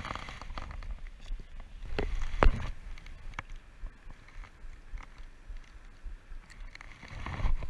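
Handling noise from a spinning rod and reel held in a float tube, over a low rumble. There is a sharp click about two and a half seconds in, and a few knocks near the end.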